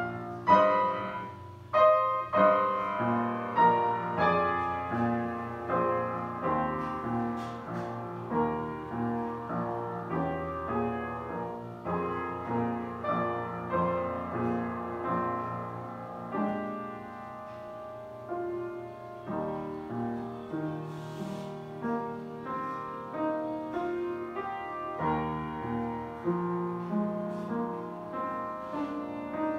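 Upright piano played solo: a flowing classical piece of struck, ringing notes, with a quieter held passage about two-thirds of the way through.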